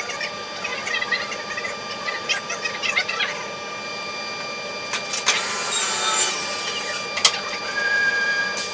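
Woodworking machine running with a steady whine, with sharp clicks or knocks about five and seven seconds in and a burst of hissing noise between them as a piece of wood is worked.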